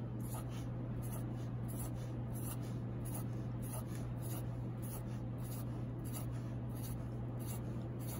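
Sharpie marker drawing on paper: a quick run of short strokes, about two a second, as small circles are dotted one after another, over a steady low hum.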